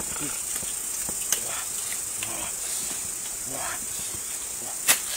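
Steady high-pitched insect drone with soft rustling of dry leaves, and one sharp machete chop near the end as a salak fruit cluster is cut from the palm.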